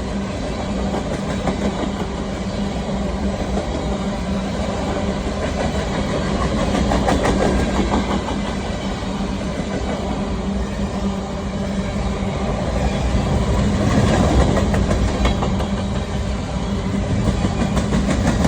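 Freight grain train of covered hopper cars rolling past, its steel wheels clicking over the rail joints over a continuous rumble. It swells a little louder twice as it goes by.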